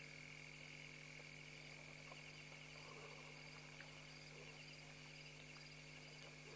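Faint, steady night chorus of calling frogs, a fast pulsing trill that never stops, over a low steady hum.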